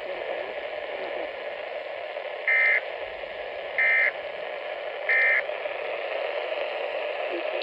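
Solar Crank CR1009 weather radio's speaker playing NOAA Weather Radio: a steady static hiss with three short, identical data bursts about 1.3 s apart. The bursts are the SAME end-of-message code that closes the severe thunderstorm warning.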